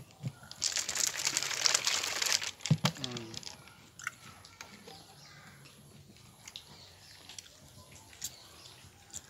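Plastic Coca-Cola bottle being unscrewed: the carbonated gas hisses out for about two seconds as the cap is twisted, followed by a couple of sharp clicks.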